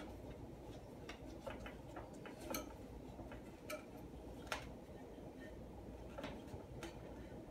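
Faint, irregular clicks and taps of plastic fittings being handled and adjusted inside a porcelain toilet tank, the sharpest one about halfway through.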